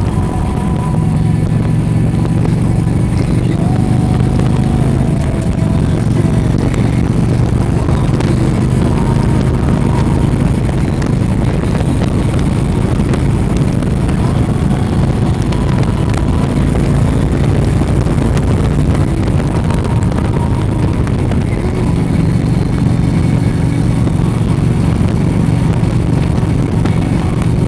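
Motor vehicle engine running at a steady speed: a loud, constant low drone with an even engine hum.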